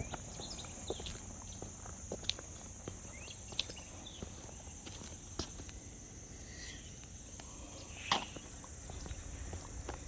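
Steady high insect chorus, with scattered footsteps on a concrete road and a louder scrape or knock about eight seconds in.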